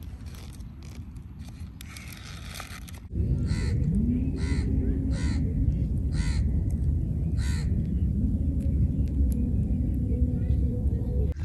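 A crow cawing five times over about four seconds, starting about three seconds in, over a steady low rumble.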